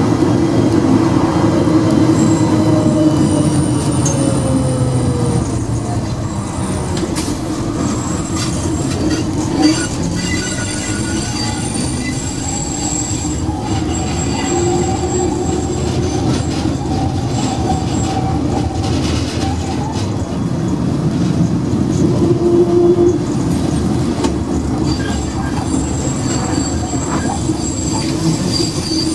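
Ganz tram running on its rails, heard from the driver's cab: a steady rumble of wheels and motors with a low hum, and thin high wheel squeal in stretches as it takes curves. One sharp knock about ten seconds in.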